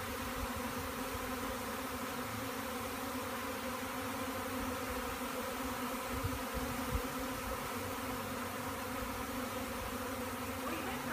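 Steady buzzing hum of a large swarm of honey bees flying close around, after the cluster has been knocked from a branch.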